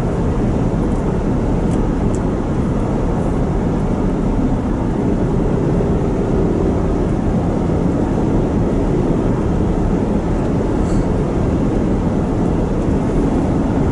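Steady road and engine noise of a gas-powered vehicle driving at interstate speed while towing a trailer.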